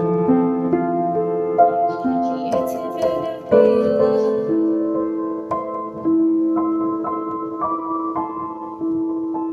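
Instrumental ending of a slow song played on a keyboard: a melody of held notes, each sustained about a second before the next comes in over a steady lower tone.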